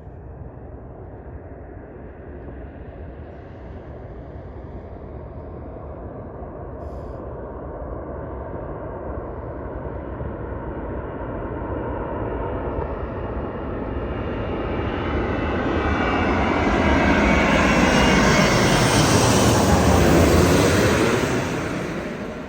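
Airplane flying past overhead: its engine noise grows steadily louder, is loudest about three quarters of the way in, with a rushing noise that sweeps in pitch as it passes, then falls away near the end.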